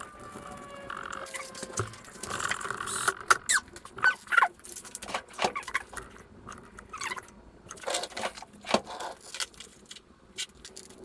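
Irregular clicks, clinks and light scraping of hand work with tools and engine parts, with a faint falling squeak near the start.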